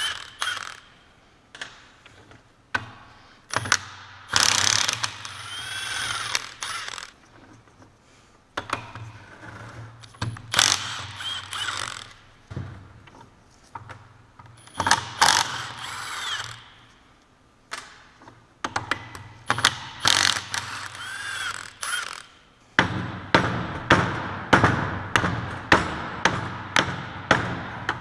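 Socket ratchet clicking in repeated bursts as bolts are undone on a Salisbury differential. About five seconds before the end comes a run of sharp knocks, about two a second.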